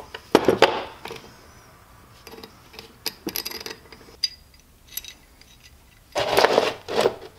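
Metal bolts and flat metal linkage bars clinking, rubbing and scraping as they are handled and set down on a wooden workbench. A few sharp clinks come about half a second in, then lighter clicks, and a louder scraping clatter about six seconds in.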